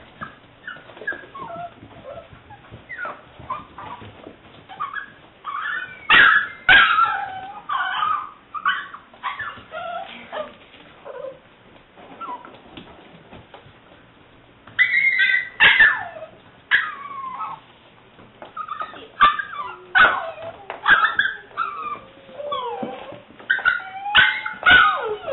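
Seven-week-old English springer spaniel puppy whimpering and yipping in short, high, sliding cries, growing busier about six seconds in, with a brief lull around the middle.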